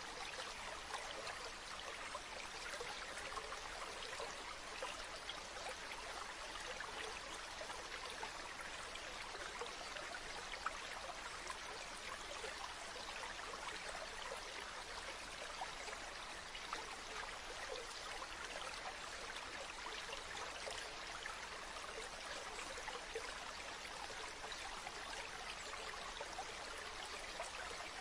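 A stream flowing steadily: an even babble of running water, flecked with small splashes and trickles.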